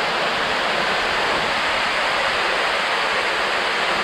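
Steady rush of water falling close by from a tall waterfall, about 73 metres high.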